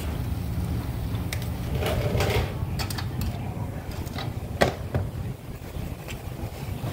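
A steady low kitchen hum with scattered light clatter, and a sharp knock about two-thirds of the way in as a metal baking tray of donut dough is set down on the worktable.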